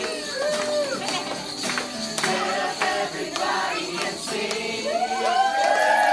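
Music with singing: a melody with several pitched lines over light percussive hits.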